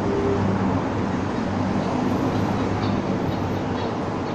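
Steady rumble of city street noise, like traffic, with a faint low hum.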